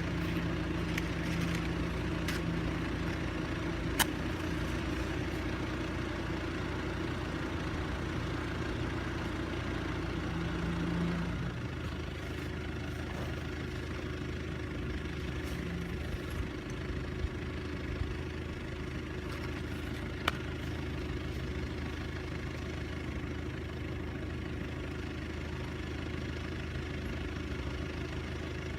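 A steady mechanical hum like an engine or generator running, which shifts slightly in pitch and level about twelve seconds in. A few sharp cracks from the open campfire stand out above it.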